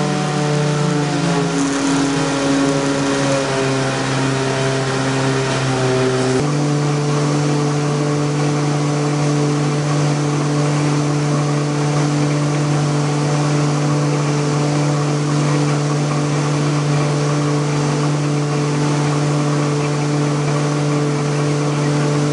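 Corrugator production line running: a loud, steady machine hum over a noisy mechanical haze. The pitch of the hum shifts over the first few seconds, changes abruptly about six seconds in, then holds steady.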